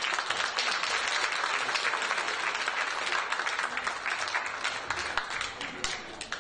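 A seated audience applauding steadily, thinning to a few scattered claps near the end.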